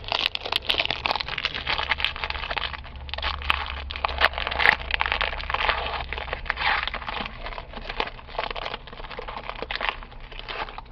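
Plastic wrapper of a football trading card pack crinkling and tearing as it is opened, with dense, irregular crackles throughout.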